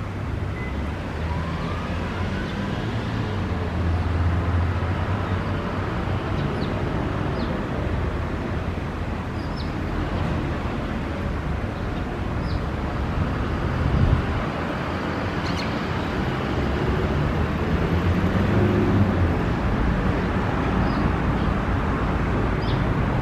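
A bird giving short, high chirps every few seconds over steady road-traffic rumble.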